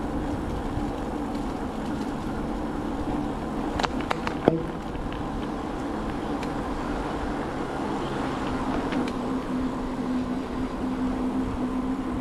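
Steady low rumble with a constant hum, the noise of moving along a path with the camera. A few sharp clicks and one louder knock come about four seconds in.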